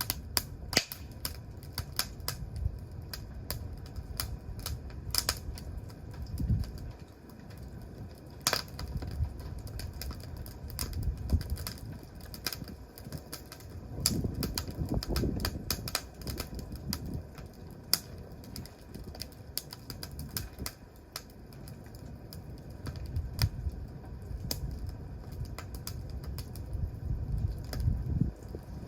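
Wood fire crackling, with irregular sharp pops and snaps over a low rumble.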